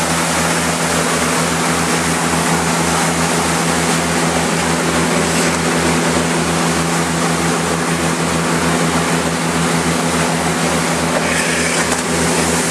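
Motorboat engine running steadily under way, with a low, evenly pulsing throb, over the rush of the churning wake and wind.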